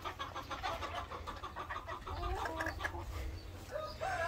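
Modern Game Bantam pullets clucking and giving short calls, with a rising-and-falling call about two seconds in.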